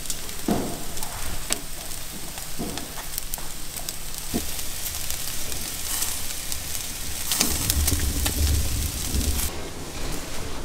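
Shashlik of meat and ribs on skewers sizzling over hot charcoal, a steady hiss with scattered sharp crackles of fat on the coals. The sizzling stops about nine and a half seconds in.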